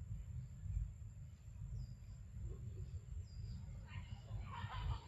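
Outdoor forest ambience: short, high chirps recurring every second or two over a steady low wind rumble on the microphone, with a brief louder burst of sound about four seconds in.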